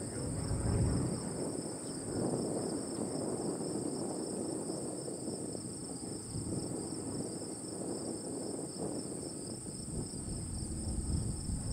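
Crickets and other insects trilling steadily at two high pitches, the lower one slightly pulsing, over a low rumbling outdoor noise.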